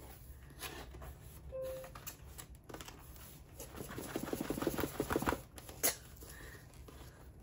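A cardboard box being slid out of its tight cardboard sleeve: a juddering scrape of cardboard rubbing on cardboard, loudest and densest in the middle of the stretch, with scattered rustles of handling around it. The sleeve sticks, and it sounds utterly terrible, though the box is not tearing.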